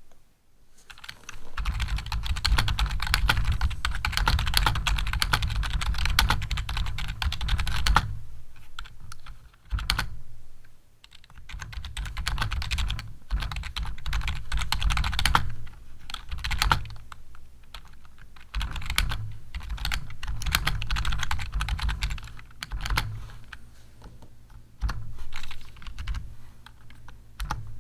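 Rapid typing on a computer keyboard, in several runs of a few seconds each with short pauses between them.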